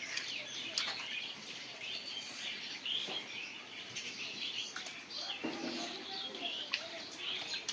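Small birds chirping and twittering steadily, many short overlapping calls, with a few brief sharp clicks.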